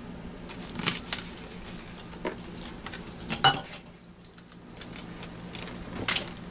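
A few sharp clinks and knocks, the loudest about three and a half seconds in, from a small dog and its toy against a hard floor and a stainless-steel pedal bin, over a steady low hum.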